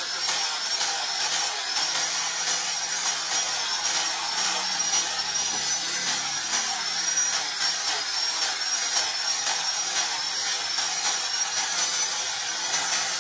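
Electric angle grinder fitted with a sanding disc, running steadily as it sands a wooden knife handle. Its high motor whine wavers slightly in pitch.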